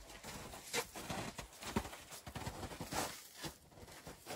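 Footsteps crunching on packed snow, with foam interlocking floor tiles being set down on the snow; irregular soft crunches and thuds, a few a second.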